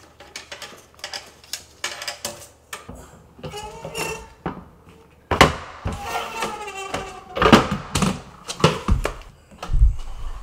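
Luxury vinyl plank being measured and cut on a guillotine-style vinyl plank cutter: a run of clicks and knocks from the tape measure and plank, then creaks and clunks as the cutter's lever shears through the plank in the second half.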